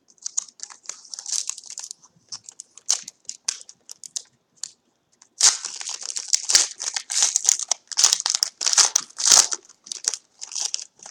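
Crinkling and tearing of a trading-card pack wrapper while cards are handled, busiest in the second half.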